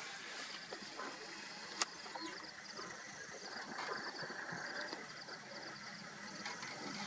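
Male lion chewing and tearing at a warthog carcass: irregular wet crunching and crackling of flesh and bone, with one sharp click about two seconds in. A high, rapid chirping runs in the background through the second half.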